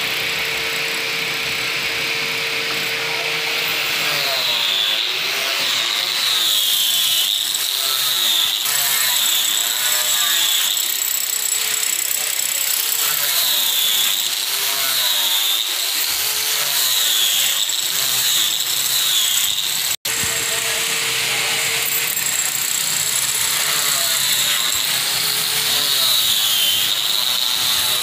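Handheld electric power tool working wood, its high whine dipping and rising again and again as it is pressed into the work and eased off. It cuts out for a split second about twenty seconds in.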